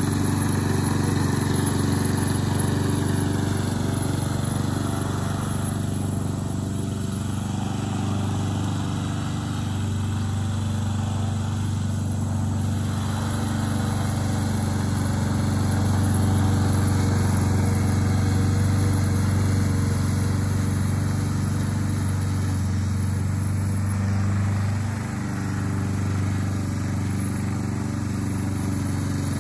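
Gas lawn mower engine running steadily under load while mowing, freshly refuelled after running out of gas.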